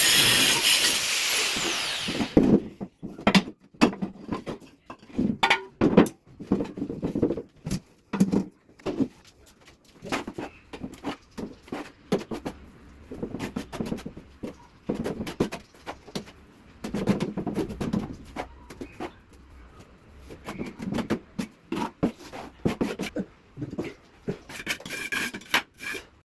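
Ceramic tile work. A power tool's loud cutting noise dies away about two seconds in, followed by irregular knocks, taps and short scrapes.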